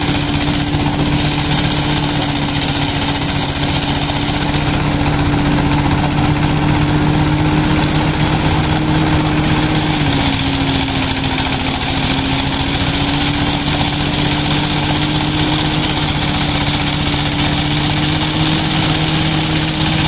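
Engine-driven paddy threshing machine running steadily while rice stalks are fed through it, a continuous machine hum with a steady pitch. The pitch sags briefly about halfway through, then recovers.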